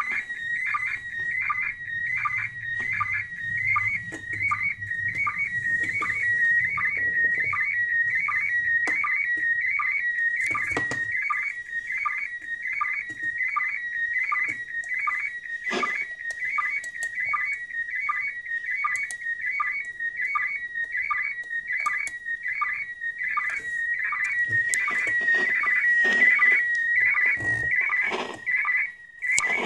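Slow-scan television (SSTV) signal from the ISS, PD180 mode, heard through a radio receiver: a steady high whistle-like tone that shifts slightly in pitch, broken by a short lower blip about every three-quarters of a second as each pair of picture lines is sent, over faint radio hiss. A few sharp clicks are heard along the way.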